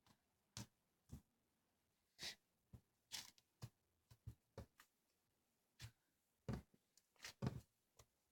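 Slime being handled and pressed by hand, making about fifteen short, irregular sticky pops and clicks.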